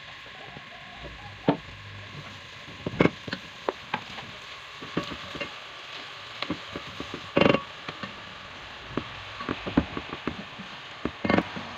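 Chopped onions sizzling in hot oil in a pot, stirred with a silicone spatula. Many sharp knocks and taps come from the spatula against the pot and chicken pieces going in; the loudest is about seven seconds in.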